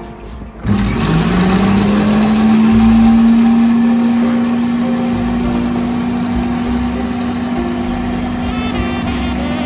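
Electric food processor starting up about a second in, its motor hum rising quickly in pitch and then holding steady as the blade blends raw eggs and garlic.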